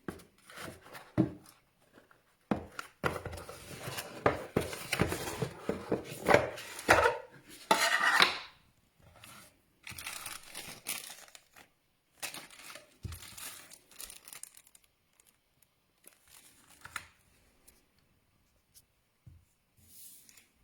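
Plastic packaging crinkling and tearing as it is handled, busiest and loudest in the first half, then sparser rustles and small clicks.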